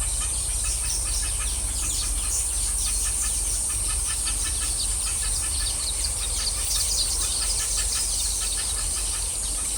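Chorus of weaver birds chattering with many short, rapid chirps, over a steady high-pitched buzz.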